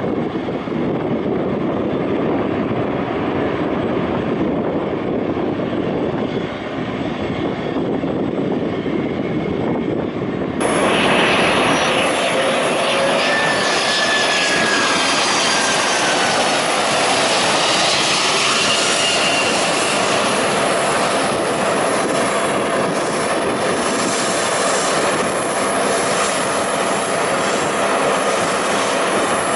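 Jet airliner engines: first a steady distant rumble from a twinjet on the runway, then, after a cut about ten seconds in, a louder roar as a Boeing 767 passes low on approach with a falling whine and lands.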